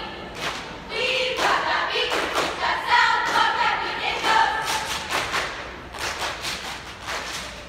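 Cheer squad chanting a cheer together in unison, punctuated by sharp hits that keep time.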